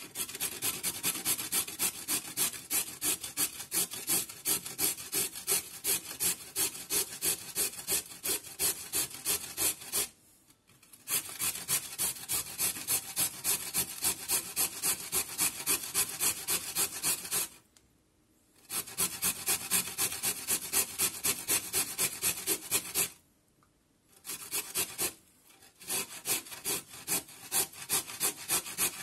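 A carrot being grated on a stainless steel box grater: quick, even rasping strokes, about three a second, stopping briefly three times.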